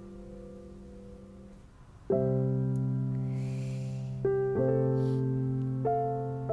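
Soft piano background music: a held chord fades away, then new chords are struck about two seconds in and again every second or two, each ringing on and slowly fading.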